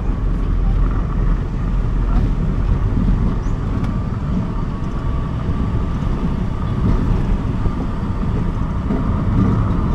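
A car driving along at steady speed: a constant low rumble of engine and tyres on the road, with a faint steady whine above it.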